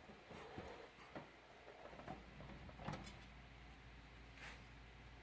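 Faint, scattered clicks and taps of a screwdriver and loosened screws on a computer case as the screws holding its front panel are taken out.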